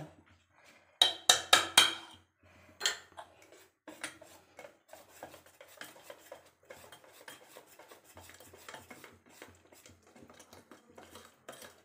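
Several sharp metal clinks against a steel bowl, then a wire whisk beating semolina cake batter in the steel bowl: a long run of quick, light scraping and clinking strokes as the baking soda and baking powder are mixed in.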